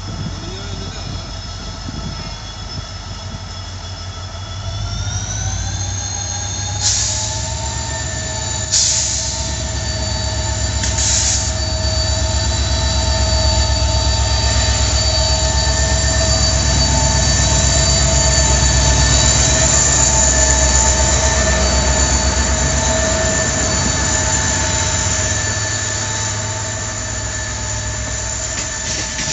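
WDP4D diesel-electric locomotive's 16-cylinder two-stroke engine pulling a passenger train away from a station. Its high whine rises in pitch about five seconds in as it throttles up, and three short hisses follow a couple of seconds apart. Then comes a deep rumble as the locomotive passes close, loudest midway and easing off as the coaches roll by.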